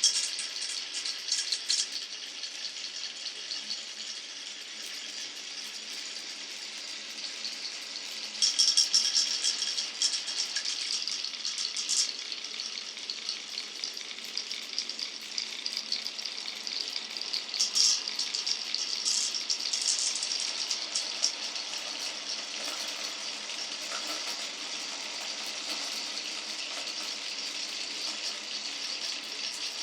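Glass marbles rolling and clattering along a marble run, a steady rolling rattle. Bursts of quick clicks come about eight seconds in and again around eighteen seconds in.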